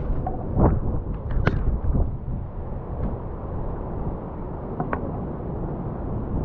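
Wind buffeting the microphone of a camera worn on a dog's harness, a steady low rumble. A few sharp knocks in the first two seconds, and one faint click about five seconds in, come from the harness and the dog's movement.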